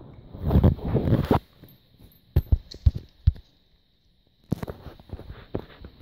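British shorthair cat eating from a stainless-steel bowl: rapid crunching chews for about the first second and a half, then scattered single chews and clicks with a short pause, picking up again near the end.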